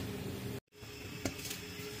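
Quiet steady hum and faint hiss from a lidded aluminium pot of curry cooking on the stove. The sound drops out completely for a moment about half a second in, and there is one light click a little past the middle.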